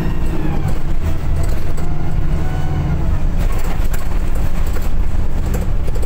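Diesel engine of a VDL SB200 Wright Pulsar 2 single-deck bus running under way, heard from inside at the rear, with a whine that dips and then rises again about two to three seconds in. Short rattles sound about halfway through.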